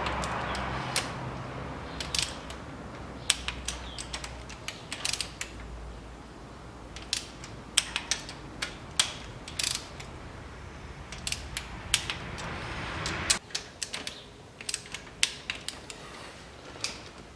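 Ratchet of a torque wrench clicking in runs as camshaft bearing cap bolts are tightened to 10 N·m, with sharp separate clicks scattered throughout.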